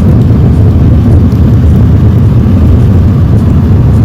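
Loud, steady low rumble like that of a moving car, with no speech over it.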